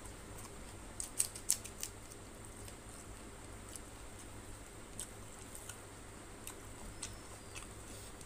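Wet eating sounds of fingers working rice and tilapia fish curry on a paper plate: sharp sticky clicks and smacks, with a quick cluster of louder clicks about a second in, then single clicks every second or so.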